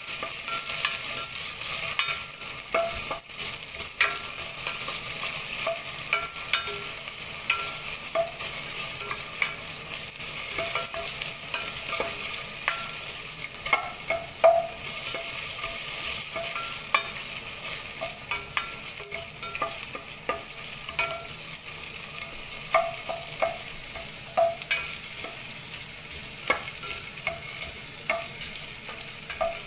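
Onion wedges sautéing in hot oil in a stainless steel pot, with a steady sizzling hiss. A spatula stirs them, scraping and knocking against the metal pot with irregular clicks, some with a brief ring.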